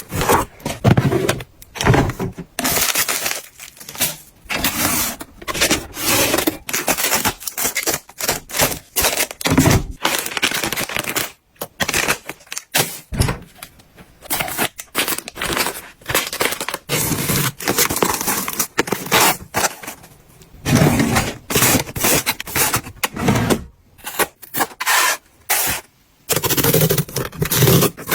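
Food packaging and containers being handled and set down during fridge restocking: a quick, irregular series of plastic rustles, scrapes and knocks.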